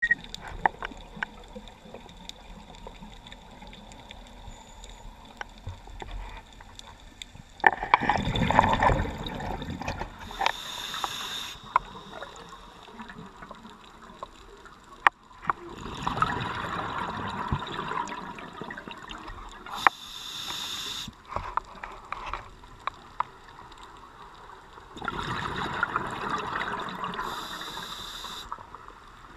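Scuba diver breathing through a regulator: three long bursts of exhaled bubbles about eight seconds apart, each with a short high hiss from the regulator, over scattered sharp underwater clicks.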